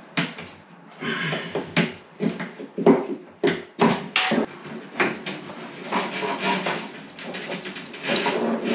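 Fibreglass cable rods being worked through a plasterboard ceiling void: irregular scraping and knocking as the rods rub and bump against the board and ceiling timbers, with a busier stretch of clatter about a second in.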